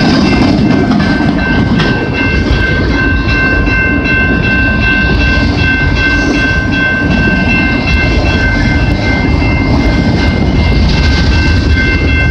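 Freight train cars rolling past close by: a steady low rumble of wheels on rail with clickety-clack, and a steady high-pitched squeal.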